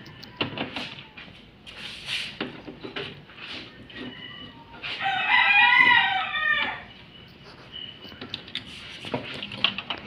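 A rooster crowing once, a pitched call lasting about two seconds, about five seconds in. Around it are scattered clicks and knocks from the washing machine's mainboard cover being worked open.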